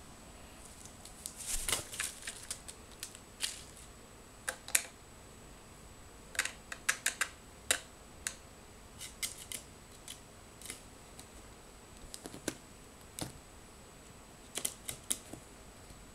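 Irregular sharp clicks and taps, some in quick runs of several: a pet rook's beak and claws pecking and tapping on a tabletop.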